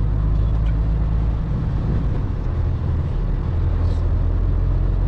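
Lorry's diesel engine running, heard from inside the cab as a steady low drone, its note shifting slightly partway through as the truck moves slowly.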